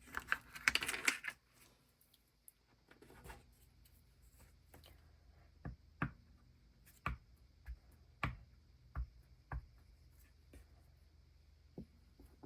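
Ink pad dabbed onto a rubber stamp on an acrylic stamp block, and the block pressed onto paper: a brief rustle at the start, then light irregular taps, about one a second, in the second half.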